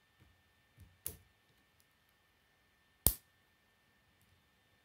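K'nex plastic rods and connectors being snapped together by hand: a few faint clicks, a sharper click about a second in, and a loud single snap about three seconds in.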